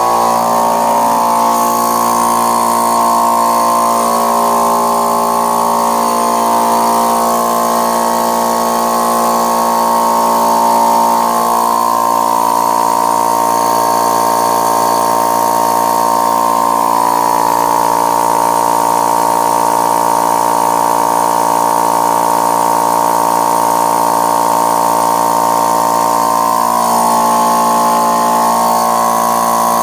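Mastercraft 20-gallon air compressor with a 2 hp electric motor running steadily on its first start, quite noisy. Its intake muffler is not yet fitted, which the owner suspects is why it is so loud.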